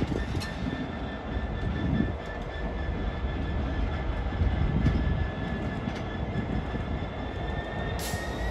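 GBRF Class 66 diesel locomotive running light past at low speed: its two-stroke V12 diesel engine gives a steady low rumble, with a thin, steady high whine on top and a few faint clicks.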